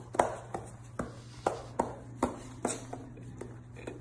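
Repeated sharp knocks, about two a second at an uneven pace, becoming sparser in the last second.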